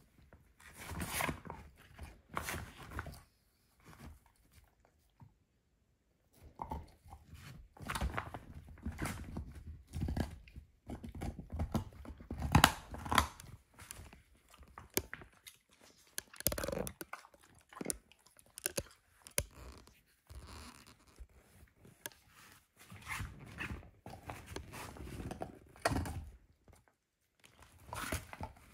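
A dog gnawing a lamb bone: irregular clusters of crunches and cracks as its teeth work on the bone, with a short pause a few seconds in.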